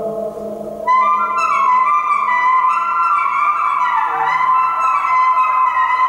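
Alto saxophone with live electronics. A low sustained drone fades out, then about a second in high held notes enter sharply and pile up in several overlapping layers, sliding slowly in pitch.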